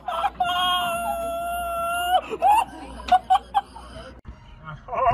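A person's long, high-pitched scream, held for about two seconds, then a few shorter cries.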